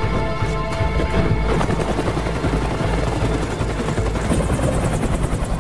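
Helicopter rotor chopping in a fast, steady rhythm as the helicopter flies, over a film score. Held musical tones are heard for about the first second and a half, then the rotor chop takes over.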